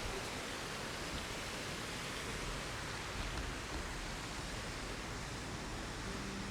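Steady rush of flowing creek water, an even hiss with no distinct events.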